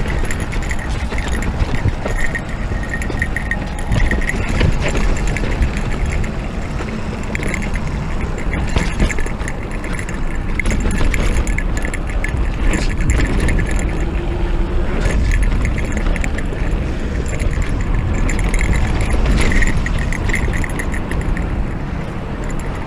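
Electric mountain bike ridden over a rough dirt trail: a steady low rumble of tyre and ride noise, the bike rattling and clicking over bumps, and a high whine that comes and goes.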